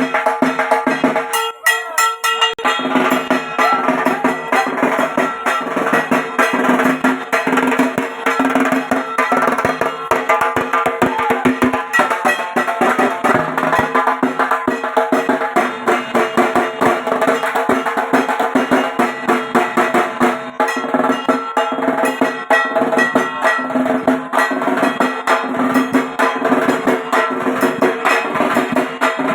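Dhak, the large Bengali barrel drum with stretched hide heads, beaten with wooden sticks in a fast, unbroken rhythm of dense strokes. The deep notes drop out for about a second near the start, then the drumming carries on steadily.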